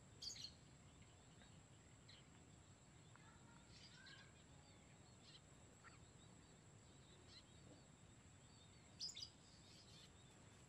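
Near-silent rice-paddy ambience with a few faint, short, high bird chirps scattered through; the clearest come just after the start and about nine seconds in.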